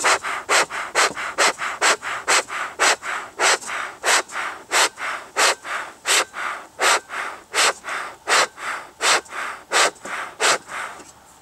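Bee smoker's bellows squeezed by hand, puffing air through the smouldering willow punk in short hissing bursts about twice a second, fanning the fire to build up smoke. The puffs stop shortly before the end.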